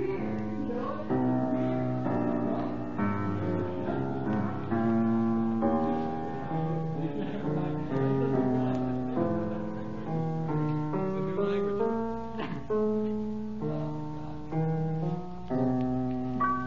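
Piano playing a series of held chords, each changing after about a second.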